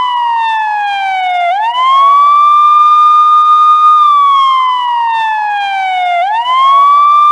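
Police car siren wailing: the tone slides slowly down, sweeps quickly back up about a second and a half in and holds high for a couple of seconds, then slides down again and sweeps back up near the end.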